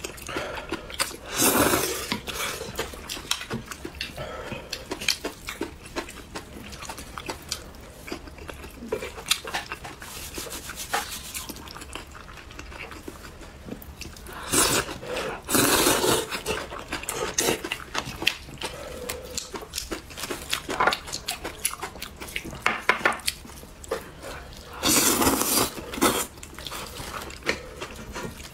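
Spicy instant noodles being slurped up in three loud bursts about a second long. Between them come wet chewing and the small clicks of wooden chopsticks against the bowl.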